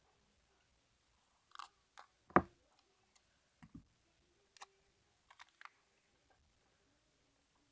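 Hands handling paper and tape: scattered soft clicks and taps, with one louder knock about two and a half seconds in.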